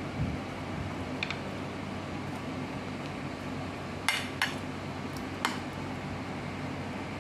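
Metal spoon clinking against a ceramic plate: a light clink about a second in, then three sharper clinks in the middle. A steady low hum runs underneath.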